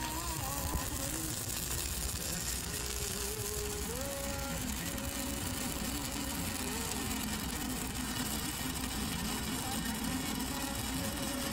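Stick-welding arc from a 5/32-inch E6010 electrode burning along a steel pipe joint: a steady crackling buzz.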